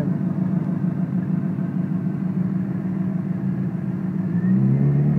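2007 Suzuki GSX-R750's inline-four engine running steadily at idle, its speed picking up near the end as it begins to be revved.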